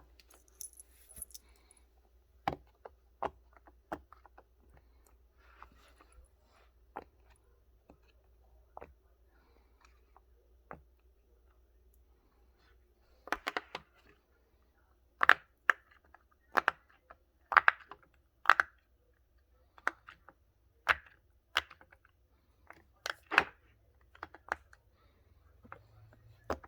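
Silicone pop-it fidget toy bubbles being pressed through: a series of sharp pops, sparse and faint at first, then louder and closer together in the second half.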